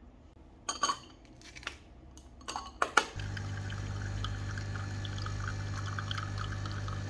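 Coffee machine: a few clicks and knocks, then about four seconds of steady pump hum with liquid pouring as it dispenses, cutting off suddenly at the end.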